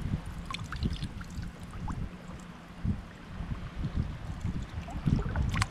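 Shallow seawater sloshing and splashing around the legs and hands of a person wading knee-deep, with wind rumbling on the microphone. There is a short, sharper splash near the end.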